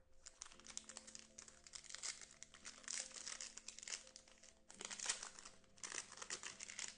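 Crinkling of a foil trading-card pack wrapper, handled and torn open, in uneven bursts with the loudest about five seconds in.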